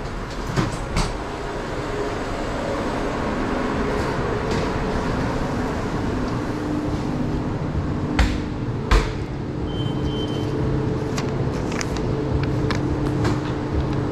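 Steady hum of sandwich-shop kitchen equipment, with sharp knocks and clatters of work behind the counter: two small ones near the start, two louder ones about eight and nine seconds in. A short high beep sounds about ten seconds in.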